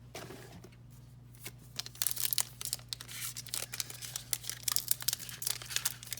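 Foil trading-card pack wrapper being torn open and crinkled, light handling at first, then a dense run of sharp crackles from about two seconds in.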